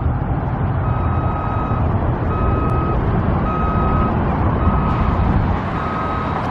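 Reversing alarm on construction equipment beeping at a steady pace, about one beep a second, five beeps in all, over a steady low rumble of vehicle engines.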